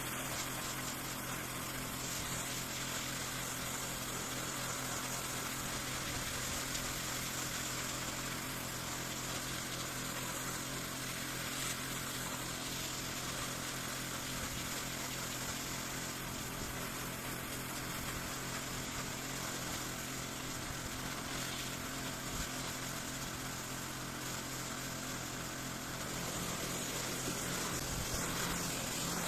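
Pressure washer running steadily, its motor a constant drone under the hiss of the water jet, getting a little louder near the end.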